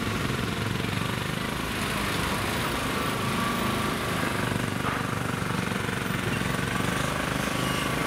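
Engine of a JCB HTD-5 tracked mini dumper running steadily with a rattly note as it is walked along by its operator.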